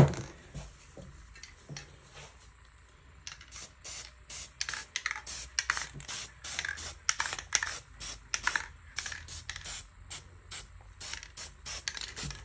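Aerosol spray-paint can sprayed in many short, quick bursts from about three seconds in, misting paint onto the panel. A sharp knock comes at the very start.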